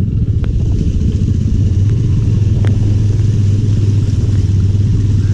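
An engine running steadily at an even speed, a constant low hum with a few faint clicks over it.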